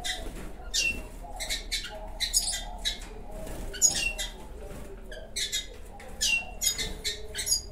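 Red siskins at the nest cheeping: clusters of short, high-pitched calls repeated every second or so, the sound of a nest with a brooding female and her chicks during hand-feeding.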